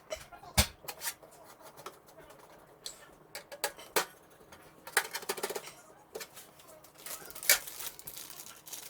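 Irregular clicks, taps and rustles of computer parts being handled and fitted, with two sharper clacks, about half a second in and near the end.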